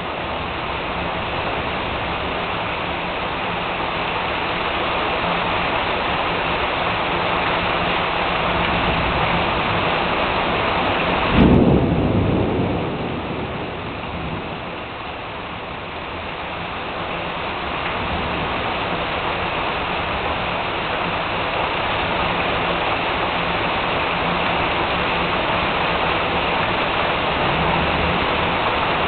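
Heavy rain pouring steadily in a thunderstorm. About eleven seconds in, a sudden close thunderclap cracks and rumbles away over a couple of seconds.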